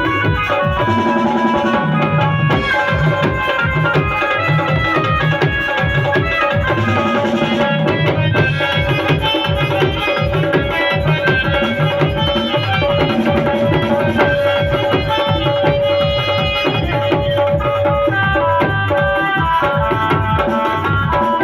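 Indian folk music: a dhol drum played in a steady, quick rhythm of deep strokes under a continuous melody of held notes.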